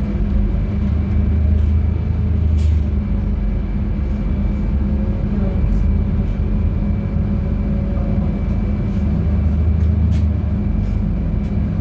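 LiAZ-5292.71 gas-powered city bus driving, heard from inside the passenger cabin: a steady low engine drone and road rumble that swells twice, with a thin steady whine and scattered light rattles and clicks.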